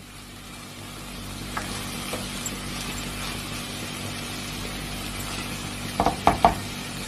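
Brown rice and vegetables frying in a pan while being stirred with a spatula: a steady sizzle with scraping, as the spices are mixed in. Near the end come a few quick, sharp knocks of the spatula against the pan.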